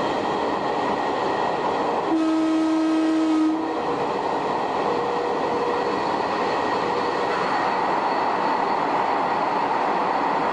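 Shin-Keisei 500-series electric train running, the hum of its nose-suspended traction motors and the wheels on the rails heard from the cab. About two seconds in, one steady horn blast of about a second and a half, a warning sounded as the train nears a tunnel.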